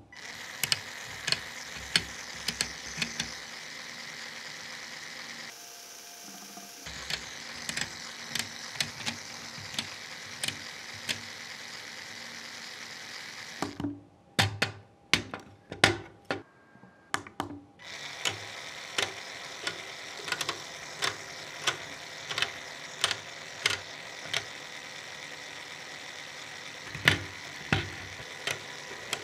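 Plastic Lego Technic gear train whirring as an electric motor turns it, with frequent sharp clicks and clacks of plastic gears and beams being pushed into place by hand. The whir drops out for a few seconds about halfway, leaving only the clicks.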